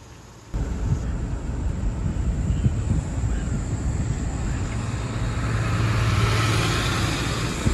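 Rural fire service tanker truck driving past close alongside on a dirt road: engine rumble and tyre noise. The sound starts suddenly about half a second in and swells as the truck draws level.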